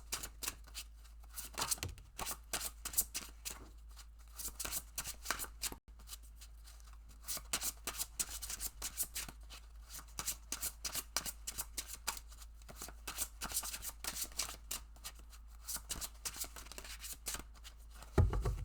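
A deck of oracle cards being shuffled by hand: quick runs of papery card flicks in several spells with short pauses between them, and a soft thump near the end.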